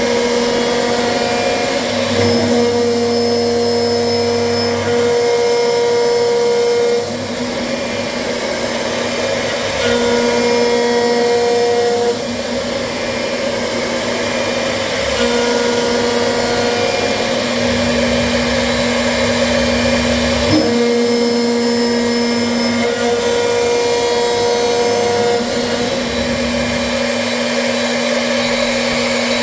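CNC machine running: a steady motor whir with a humming tone that cuts in and out every few seconds as its motors start and stop moving.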